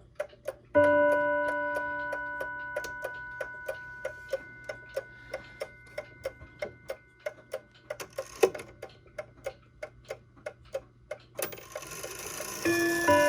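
1929 E. Ingraham tambour mantel clock ticking steadily while its passing strike hits a gong rod once about a second in, the note ringing and slowly dying away. Near the end a second strike sounds at a different pitch.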